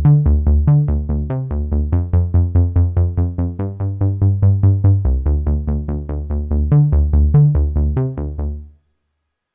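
Sequential Prophet-6 analog synthesizer bass patch playing a fast line of short repeated bass notes, about seven a second, moving between a few pitches. It stops and dies away shortly before the end.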